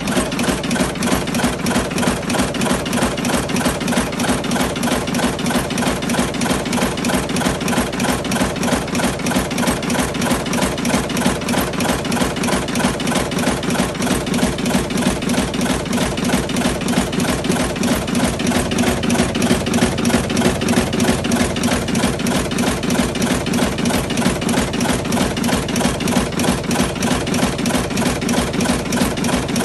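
Automatic electric cigarette-filling machine running continuously, a fast, even mechanical rhythm of strokes several times a second.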